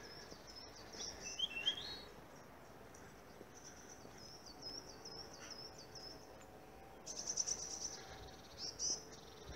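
Songbirds singing faintly in woodland: runs of thin, high, repeated notes, a short rising phrase about two seconds in, and a brief fast trill about seven seconds in.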